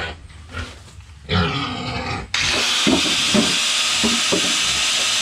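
Handheld angle grinder switches on abruptly about two seconds in and runs steadily at full speed, cutting into a rusty steel pipe. Before it starts there is a brief low sound about a second in.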